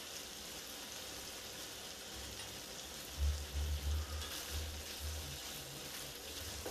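Sliced sausage sizzling steadily as it fries in a pan, pushed around now and then with a spatula. A few low booms sound in the second half.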